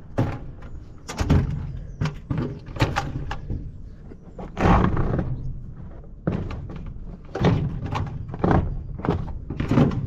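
Combine harvester's air filter housing being unlatched and the cover and large filter element worked loose: a series of short sharp clunks and knocks, with a longer, louder one about five seconds in.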